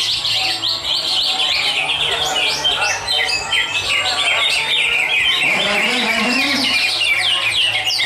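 Many caged songbirds singing at once in a dense, continuous chorus of rapid chirps and trills, with voices underneath.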